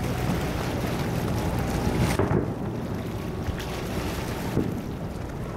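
Distant firework shells bursting as dull booms that roll and echo, the loudest about two seconds in and a weaker one near the end, over a steady low background rumble.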